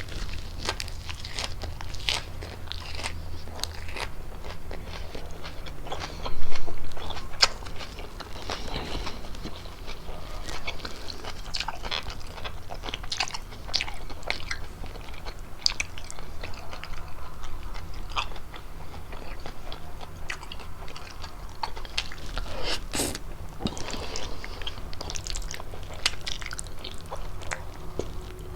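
Close-miked chewing and biting of fettuccine with chicken, a steady run of small mouth clicks, with a louder burst about a quarter of the way in and one sharp click later on.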